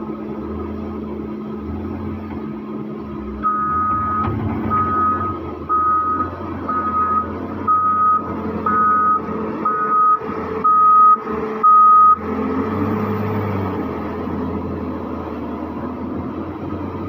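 JCB 455 wheel loader reversing: its reverse alarm beeps about once a second, some nine beeps growing louder, over the steady running of its six-cylinder common-rail diesel engine. The beeping stops about two-thirds of the way through while the engine runs on.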